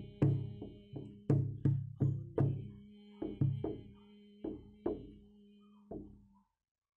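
A hand drum struck in an uneven rhythm, a deep tone ringing after each beat. The beats space out and grow softer until the drumming stops near the end.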